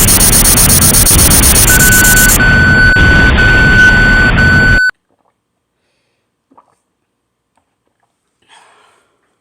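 Extremely loud, harsh distorted noise with shrill steady high tones and a beeping tone that switches on and off, cutting off abruptly about five seconds in. After that there is near silence with two faint short sounds.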